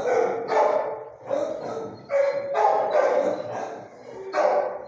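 A dog barking repeatedly, about two barks a second, with short pauses between runs.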